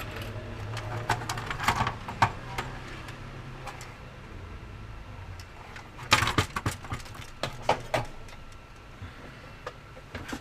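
Sharp clicks and clattering knocks of small hard objects being handled, in two clusters: one about a second in and a busier one past the middle. A low steady hum sits under the first part.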